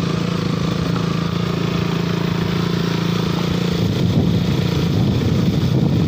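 KTM motorcycle engine running steadily while being ridden, its note turning rougher about four seconds in.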